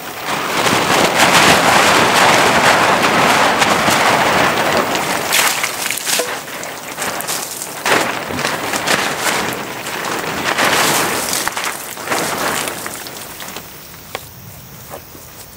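Heavy rain pouring down, coming in suddenly and easing off over the last few seconds, with scattered louder drops and taps.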